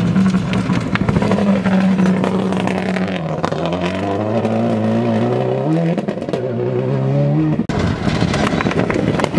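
A Subaru Impreza rally car's turbocharged engine runs at full throttle on gravel. It holds high revs, then climbs through the gears with short dips in pitch at each shift, twice. Near the end the sound cuts off abruptly, and a second rally car's engine is heard rising as it approaches.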